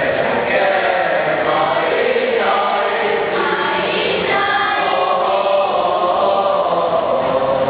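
A school choir singing together in several voices, holding long notes that change every second or so.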